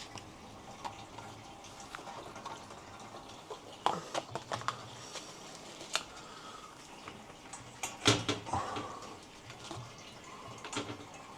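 Houseplant watering: water trickling and dripping, with a few sharp knocks and clatters as pots are handled, the loudest about eight seconds in.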